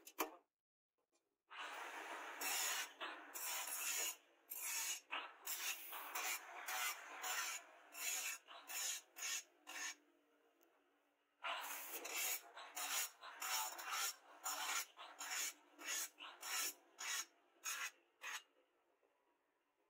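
Rasping strokes of an abrasive tool drawn along a freshly quenched leaf-spring steel machete blade, repeated about one to two times a second. The strokes come in two runs, with a pause about ten seconds in.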